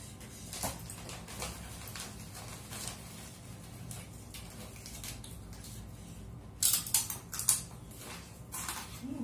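Eating by hand at a table: scattered small clicks and rustles of food being handled, then a cluster of loud, crisp crackles about seven seconds in, with a few more near the end.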